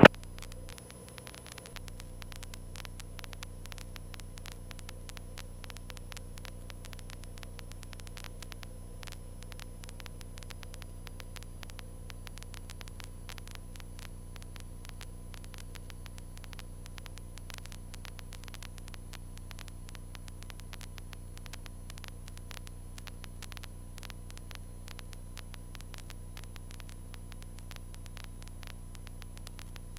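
Cessna 152 cockpit sound as picked up through the intercom feed: a steady low hum and engine drone with frequent crackling static clicks.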